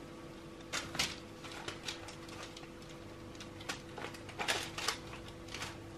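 Gloved hands unmoulding solid lotion bars from a flexible silicone mould: scattered soft clicks, taps and rustles as the mould is flexed and the bars are pushed out and set down, over a faint steady hum.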